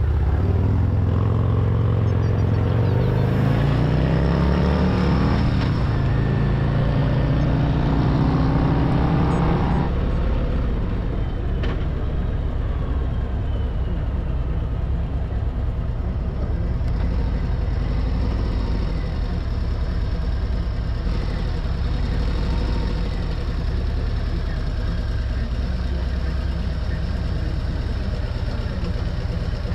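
Motorcycle engine pulling away under acceleration, its pitch rising, dropping at a gear change about five seconds in and rising again. From about ten seconds in it settles into a steady cruise.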